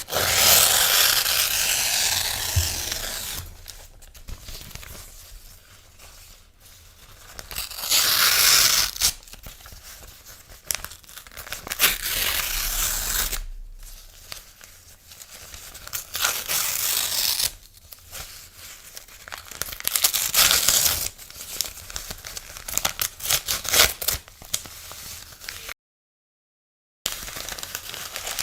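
Paper being torn by hand: a series of long rips, several seconds apart, with quieter rustling and crinkling of the paper between them. The sound cuts out completely for about a second near the end.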